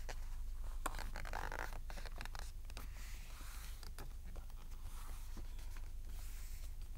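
Large sheets of origami paper rustling and scraping on a tabletop as they are folded edge to edge and the creases pressed down, with scattered light clicks and crinkles.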